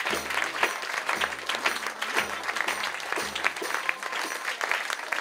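Audience applauding, a dense patter of many hands clapping, with low music notes sounding under it that stop about three and a half seconds in.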